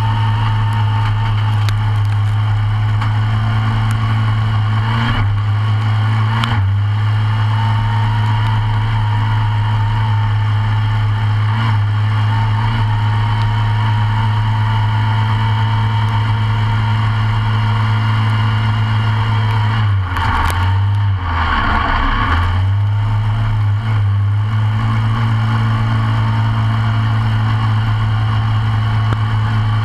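Short-course off-road kart engine idling at a steady pitch, which dips and wavers briefly a few times, most clearly about twenty seconds in.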